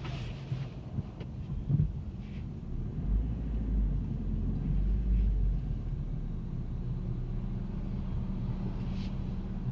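2018 Toyota Corolla running with a steady low engine hum, a heavier low rumble from about three to six seconds in, and a few short knocks just before two seconds in. The owner reports that the car makes a rattling noise.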